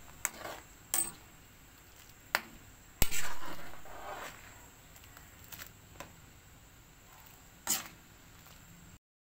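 Metal ladle clinking and scraping against a wok while stirring a boiling broth of vegetables and shrimp. There are several sharp clinks, the loudest about three seconds in, over the faint hiss of the boiling broth.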